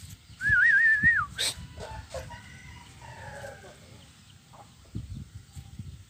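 A short wavering whistle, warbling up and down for about a second, near the start. A sharp knock follows, then faint calls from chickens.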